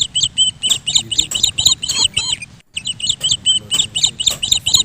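Small birds chirping in quick high phrases, the same run of chirps repeating over and over, with a brief sudden dropout about two and a half seconds in.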